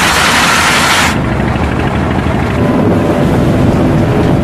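Loud rushing, wind-like noise. A bright hiss starts suddenly and cuts off about a second in, leaving a lower, rumbling rush.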